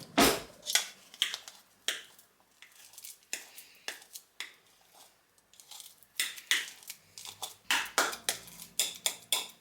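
A very ripe banana being mashed with a fork in a bowl: irregular taps and clinks of the fork against the bowl, coming faster and more regularly from about six seconds in.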